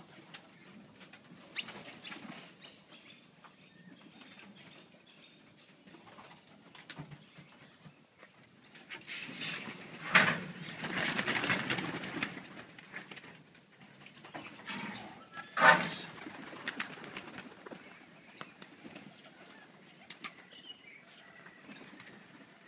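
Pigeons' wings flapping and whooshing in flight. There is a long loud spell about ten seconds in and a shorter, sharp one around sixteen seconds.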